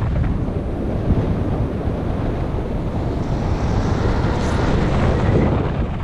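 Steady, loud wind noise on a GoPro HERO5 Black's microphone from the airflow of a paraglider in flight. It is a constant low rushing buffet with no break.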